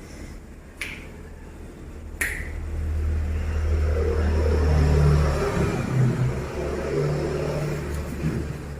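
Two sharp snaps, about a second and a half apart, then a low engine rumble that builds over a few seconds and eases off.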